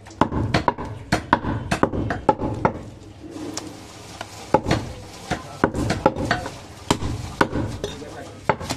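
Butcher's cleaver chopping mutton on a round wooden chopping block: a quick run of sharp knocks, about three a second, a short pause a little after two and a half seconds in while the meat is held and turned, then chopping again.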